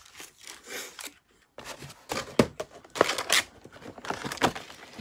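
Clear plastic pencil case and plastic pencil trays being handled: crinkling and rustling of the thin plastic with several sharp clacks. There is a short pause a little after a second in.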